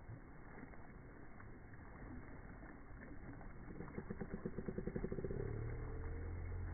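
A motor engine comes in about four seconds in with a rapid, even pulsing, then settles into a steady hum.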